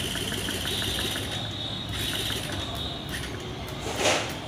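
The electric starter of a Yamaha R15 V3's 155 cc single-cylinder engine, fed straight from a battery on the bench, spinning the engine over with a steady whine and fast, even ticking as a check that everything works. A single sharp crack comes near the end.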